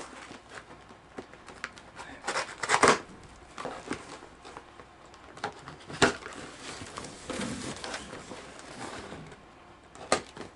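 Hands working open a taped cardboard parcel box: scratching and picking at the packing tape, with a few short sharp rips, the loudest about two and a half to three seconds in, another about six seconds in and one near the end.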